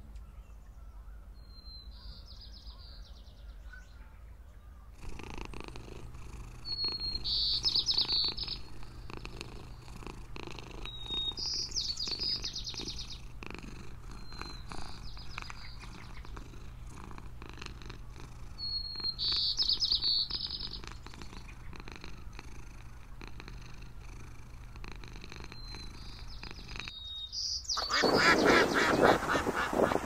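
A cat purring, with a small bird's short high chirping calls repeating about every four seconds and a steady low hum behind. About two seconds from the end, Canada geese and their goslings start calling, louder.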